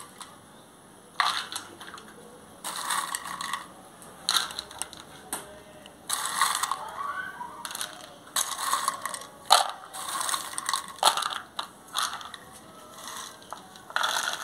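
In-shell peanuts rattling and clattering as they are scooped by hand from a bowl and dropped into small clay dishes, in a dozen or so short bursts.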